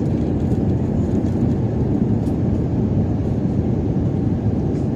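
Steady cabin drone inside an airliner: engine and airflow noise, even and unbroken.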